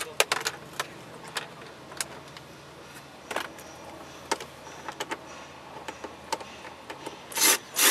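Cordless drill-driver with a long screwdriver bit whirring in a short burst near the end, backing out a glove box screw. Before it, a few scattered light clicks and taps of the bit and hands against the plastic dash.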